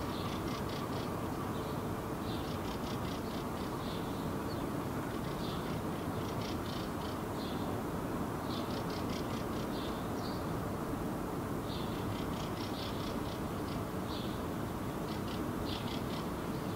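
A small songbird singing short, rapid trilled phrases, repeated every two to three seconds, over a steady low background rumble.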